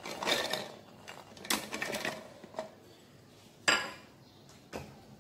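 Peeled almonds being scooped by hand from a plate and dropped into a plastic food-chopper bowl, clattering in a few short bursts, with a sharp knock about three and a half seconds in and a lighter one near the end.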